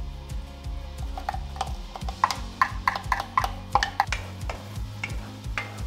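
Wooden spoon stirring chopped onion in a nonstick pan of melted lard: an irregular run of sharp clicks, taps and scrapes against the pan, over steady background music.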